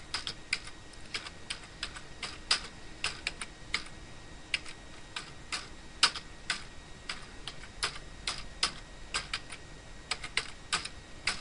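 Typing on a computer keyboard: irregular keystrokes, a few clicks a second.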